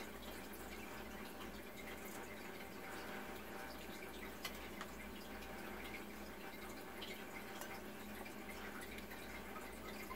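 Faint, scattered wet clicks and smacks of someone eating with their hands and chewing, over a low steady hum.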